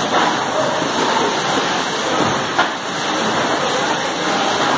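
Steady rushing noise of an 8-head oil filling machine in its coarse-feed stage, oil pouring into the containers at full flow, with a single short click about two and a half seconds in.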